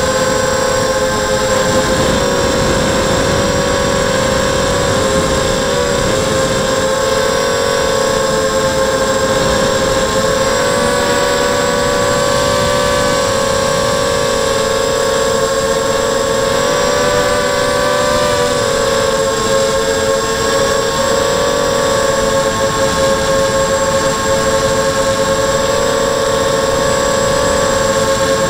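FPV quadcopter on a ZMR frame, its brushless motors and propellers whining steadily in flight, heard from the onboard camera with a rush of wind noise. Several close tones drift slightly apart and back together, most plainly around the middle.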